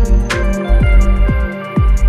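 Electronic background music with a steady beat: a deep bass hit that drops in pitch about twice a second, under sustained synth tones.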